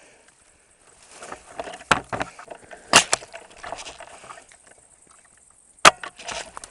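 Well MB08 spring-powered bolt-action airsoft sniper rifle: the bolt is worked with clicks and rattles, and it fires twice with two loud sharp snaps about three seconds apart, the first about three seconds in.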